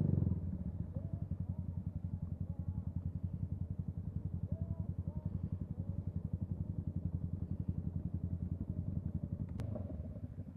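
Yamaha MT-125's single-cylinder engine idling steadily, with an even, unchanging pulse. A single sharp click comes near the end.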